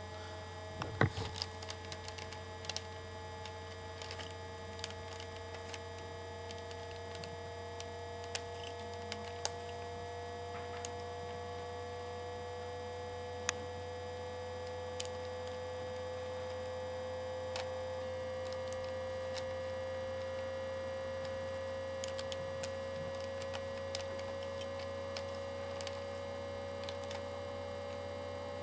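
Steady low electrical hum with a faint tone slowly rising in pitch, over scattered light clicks of an old, stiff Rubik's cube being turned.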